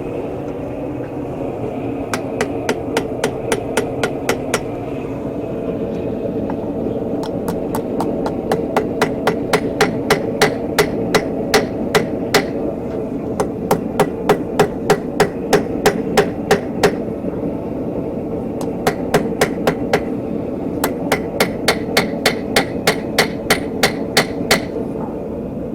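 Hand hammer striking a hot steel bar on an anvil while forging a chisel point: runs of sharp, evenly spaced blows, about three a second, broken by short pauses.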